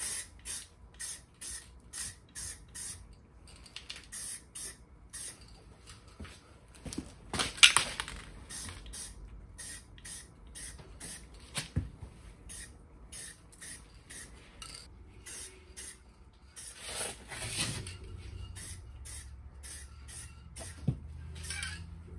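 Aerosol spray paint can with a pistol-grip trigger handle, sprayed in many short hissing puffs, about two a second, with a couple of longer, louder sprays about a third and three quarters of the way through. A single dull knock sounds about halfway through.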